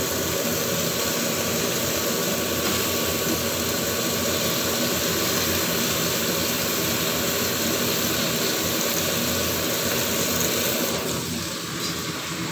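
Kitchen range-hood extractor fan running, a steady whirring hum with a rushing-air hiss. It eases a little near the end.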